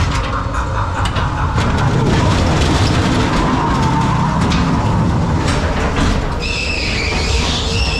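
Ghost train car rolling along its track, the wheels rumbling and clacking steadily. About six and a half seconds in, a high wavering electronic tone starts up.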